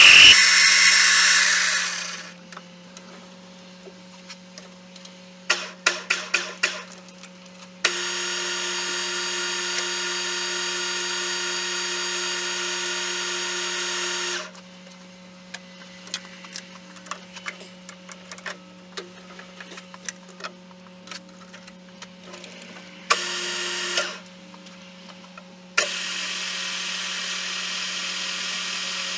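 Small metal lathe: loud cutting on a steel rod at first, then the spindle runs in stretches of steady gear whine over a low hum, with light clicks and knocks of tool handling between runs. Near the end the lathe turns the rod while a hand die cuts a thread on it.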